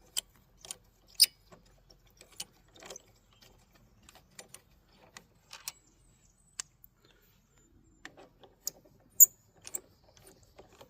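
Scattered light metallic clicks and clinks of hand tools and front brake caliper hardware being worked loose on a motorcycle, irregular and spaced apart, with one sharp click about nine seconds in.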